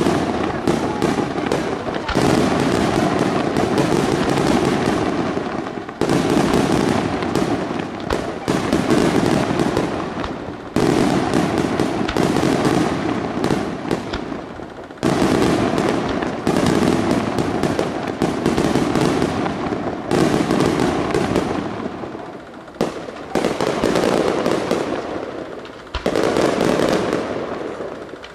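Aerial fireworks display: a dense, continuous barrage of shell bursts and rapid crackling pops. A heavy new burst lands every three to five seconds, and each one dies away into crackle before the next.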